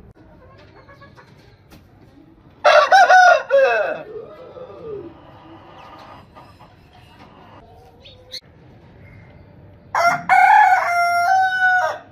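Rooster crowing twice: a short crow about three seconds in, then a longer crow near the end that holds its pitch in steps before breaking off.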